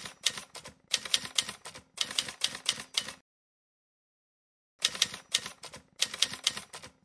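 Typewriter key-clatter sound effect: rapid mechanical key strikes, several a second, in three short runs, then a pause of about a second and a half past the middle, then two more runs.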